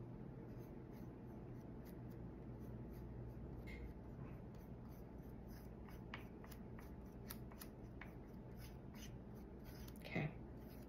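Faint, irregular scratchy strokes of wood stain being brushed onto wooden craft pieces, over a steady low hum.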